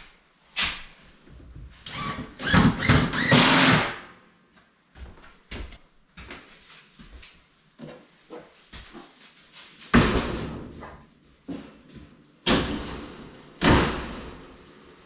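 Irregular knocks, bangs and scrapes of things being handled and moved, with a longer scraping stretch about two to four seconds in and sharp bangs at about ten, twelve and a half and fourteen seconds.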